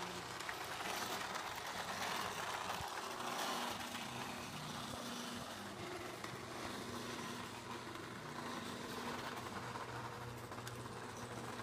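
HO scale model train running on its track: the locomotive's small electric motor hums steadily while the wheels clatter over the rails.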